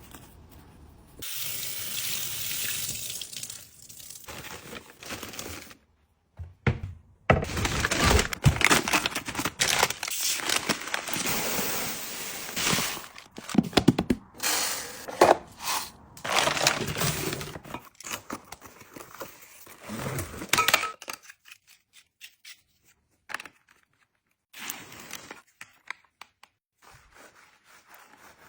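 Packaging being handled and opened: rustling and crinkling in uneven stretches, with taps and clicks. It is loudest through the middle and thins to scattered ticks near the end.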